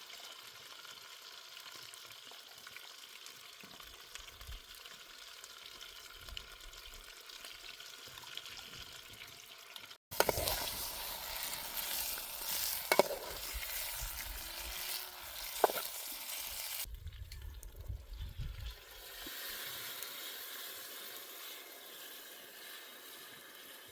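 Food sizzling as it fries in a pan. About ten seconds in, the sizzle cuts off and comes back louder, with a few sharp clicks.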